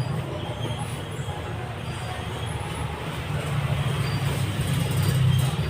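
A steady low mechanical rumble, growing louder over the last few seconds.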